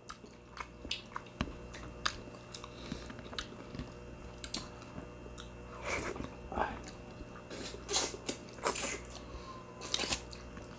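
People eating with their hands and chewing close to the microphone: soft wet mouth clicks and smacks, with a few louder bites near the middle and the end.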